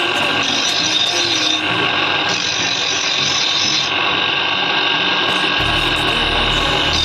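Background music with a dense, noisy texture; a deep bass line comes in about five and a half seconds in.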